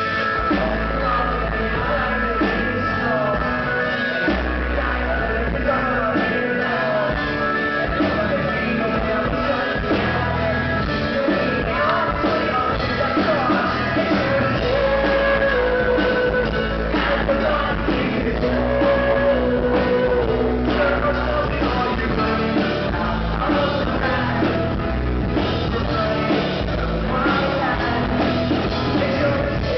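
Live pop-rock song: a male singer's vocals over a strummed acoustic guitar and a steady beat.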